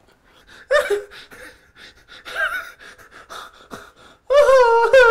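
A man gasping and breathing heavily in short breathy bursts, then breaking into a loud, long, drawn-out wailing cry about four seconds in.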